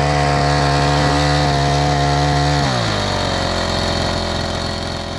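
Troy-Bilt four-stroke edger's small engine running steadily at high throttle, then dropping to a lower, steady speed about two and a half seconds in as the throttle is let off. The engine is running well on its newly replaced carburetor.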